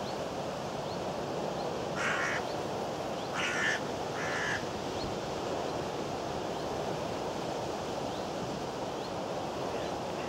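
Steady wind rushing over the microphone, with three short, harsh bird calls about two seconds in and then two more, each a second or so apart.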